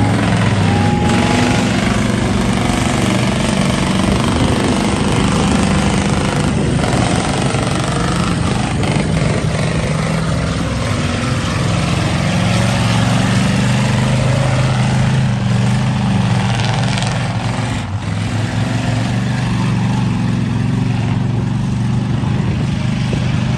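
Engines of heavy six-wheel-drive off-road trucks running hard as they churn through mud, a loud low drone whose pitch rises and falls with the throttle.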